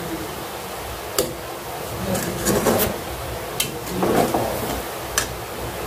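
A cooking utensil scraping and clinking against a pan as semai is stirred: a few sharp clinks with two longer scraping stretches between them, over a steady background hiss.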